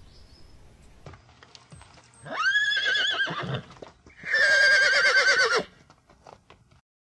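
Horse whinnying twice, each call with a quavering, trembling pitch and lasting about a second and a half; the second call is a little louder.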